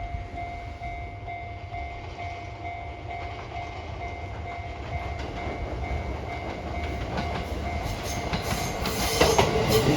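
Fujikyu 6000 series electric train approaching on the line, its rumble growing louder, with wheels clacking over the rail joints more and more densely in the last few seconds.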